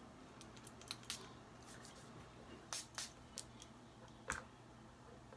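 Faint clicks and light taps from handling a small glass perfume bottle and its cap, about five in all, with one sharper knock a little past four seconds in.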